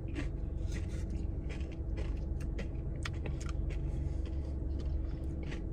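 Mouth sounds of eating a waffle cone with ice cream: a scatter of small crisp clicks and smacks from chewing, over a steady low hum inside a car.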